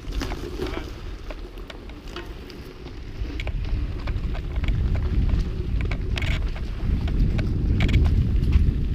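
Mountain bike riding over a rocky trail: a low rumble of tyres and wind buffeting the microphone, with scattered clicks and rattles from stones and the bike. The rumble grows louder after about three seconds.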